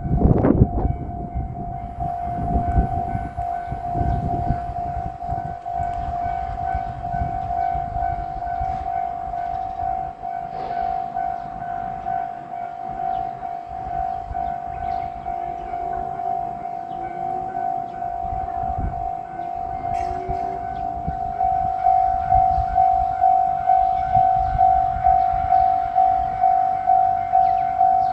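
Japanese level-crossing alarm bell ringing, a steady "kan-kan" of even strokes at about one and a half a second. The strokes grow louder and more distinct about three quarters of the way through, with an uneven low rumble beneath them.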